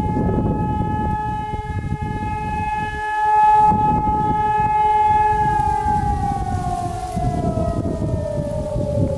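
Hörmann ECI 600 electronic siren sounding the fire-brigade test alarm: a steady tone for about five seconds, then its pitch slides down as the blast winds down. A second siren sounds fainter beneath it, over a low rumbling noise.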